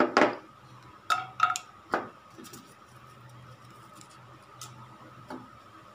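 Whole spices dropped into an aluminium pressure cooker with hot oil, making a few light clicks and clinks against the metal in the first two seconds.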